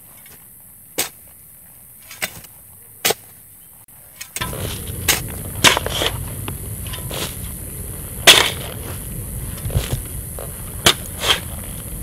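A few isolated sharp knocks over near-quiet. Then, about four seconds in, earth starts being shoveled: irregular crunches, scrapes and dull thuds of soil landing, over a steady rustle.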